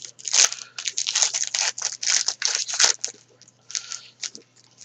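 A trading-card pack wrapper being torn open and crinkled by hand, in dense rustling bursts that thin out after about three seconds.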